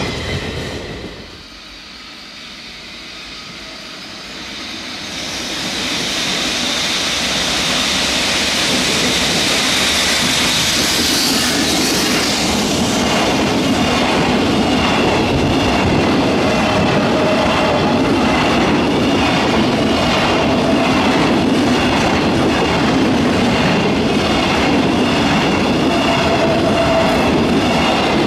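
Freight trains passing close by on the line. The tail of one train fades out in the first second or two, then a train of hopper wagons comes up within a few seconds and runs past, its wheels clacking steadily over the rail joints.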